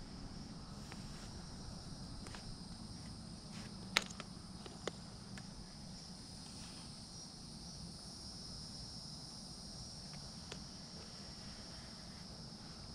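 Steady high-pitched chorus of insects, with a few sharp clicks over it, the loudest about four seconds in.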